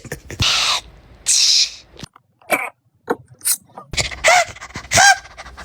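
A person making exaggerated, comic fake sneezes with the voice. First come two breathy hissing bursts, then a few short squeaks, then two louder pitched cries near the end that fall in pitch.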